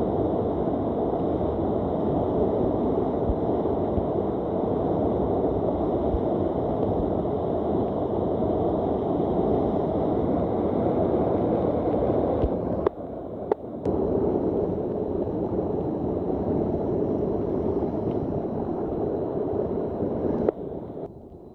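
Heavy rain pouring down in a steady, loud rush. It cuts out briefly about 13 seconds in and falls much quieter near the end.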